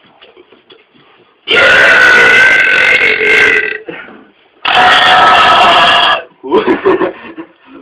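A man burping: two long, very loud belches, the first starting about a second and a half in and lasting over two seconds, the second following a second later and lasting about a second and a half. A shorter, quieter rough sound comes near the end.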